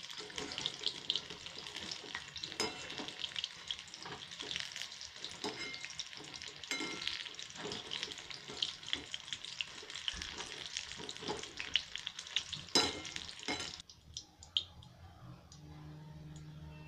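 Battered green chilli pakoras sizzling and crackling in hot oil in a steel kadhai, with a wire skimmer clinking against the pan as they are stirred and scooped out. The frying stops suddenly about fourteen seconds in as the pakoras come out of the oil, leaving a low steady hum and a few faint clicks.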